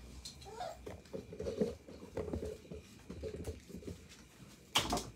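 Newborn puppies squeaking and whimpering: a short rising squeal, then a run of small squeaks and grunts. A sharp knock near the end.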